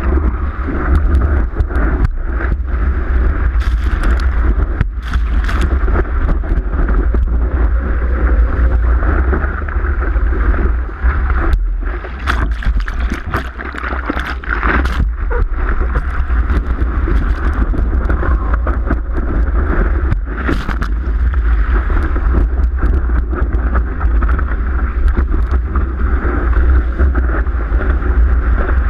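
Muffled rush of water and wind buffeting a surfboard-mounted GoPro in its waterproof housing, with a heavy low rumble and scattered sharp knocks and splashes.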